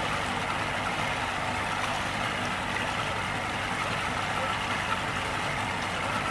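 Motorboat engine running steadily while towing an inflatable tube, with water rushing along the hull.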